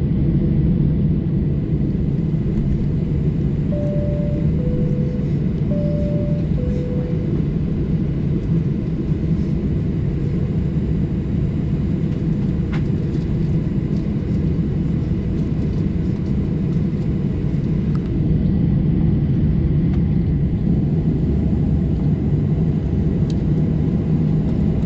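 Steady cabin rumble of a Boeing 737-800 with its CFM56-7B engines running. Two high-low cabin chimes sound in quick succession about four to seven seconds in. The rumble grows slightly louder later on.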